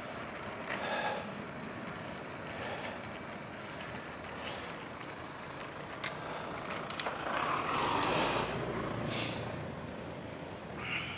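Steady road and wind noise from a bicycle riding on freshly resurfaced tarmac, swelling louder about eight seconds in, with a few sharp clicks just before the swell.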